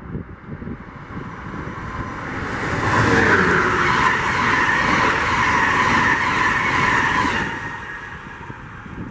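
Amtrak electric passenger train, hauled by an ACS-64 locomotive, passing at speed: the rush of wheels on rail builds over a couple of seconds, stays loud for about four seconds as the stainless-steel coaches go by, then fades away.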